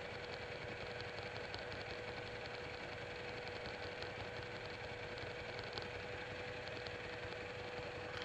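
Buell 1125R motorcycle's V-twin engine idling steadily at a standstill.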